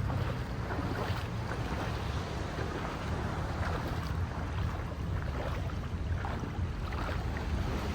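Steady wind and surf noise by the sea, with wind rumbling on the microphone.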